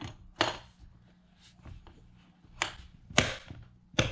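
Plastic lid and side clips of an electric heated lunch box being pressed and snapped shut: four sharp clicks spread over a few seconds, the loudest about three seconds in.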